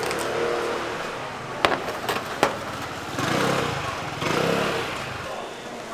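Outdoor street noise with a motor vehicle's engine swelling and fading twice as it passes, and three sharp knocks in quick succession early on.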